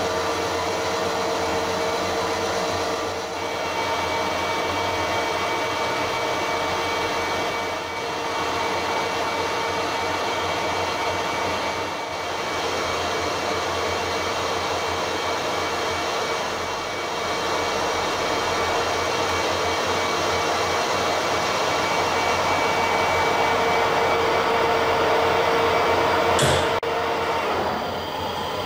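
Harrison 140 lathe running under power feed while a carbide tool takes a light finish cut along a metal bar turned between centres, with a steady whine. A sharp click comes near the end, and the sound then drops a little.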